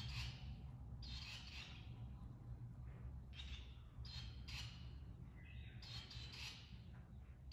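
Barn swallow nestlings calling from the nest: short, raspy chirps coming irregularly, about one or two a second, over a steady low hum.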